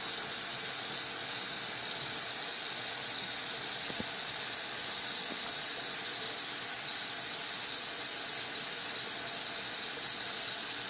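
Kitchen sink faucet left running, water pouring steadily into the sink with an even, unbroken hiss.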